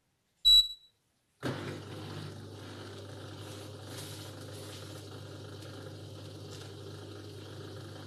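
De'Longhi tabletop mini dishwasher beeping once as the eco programme is selected, then about a second later starting to run with a steady low hum as the wash cycle begins.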